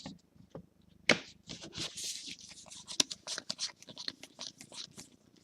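Trading cards being handled and slid against one another: a quick, irregular run of papery rustles and sharp clicks, the sharpest about a second in and again about three seconds in.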